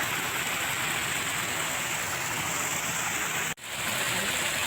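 Steady hissing, rushing noise like heavy rain or falling water. About three and a half seconds in it cuts out abruptly, then fades back in within half a second.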